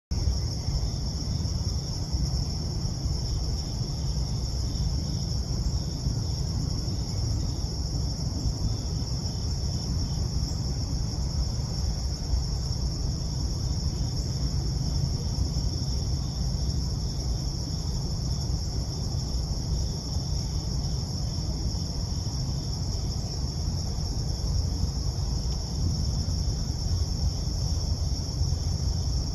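Steady chorus of crickets trilling in one constant high band, over a steady low rumble.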